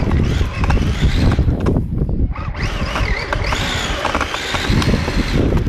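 RC drift car driving and sliding on a bare concrete floor: squealing that rises and falls in pitch over a rough rumble, with a brief lull about two seconds in.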